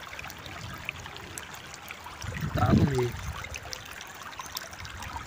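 Muddy rain runoff rushing over stones in a shallow flood across a dirt track, a steady watery rush. About halfway through, a brief voice sound cuts in and is the loudest thing.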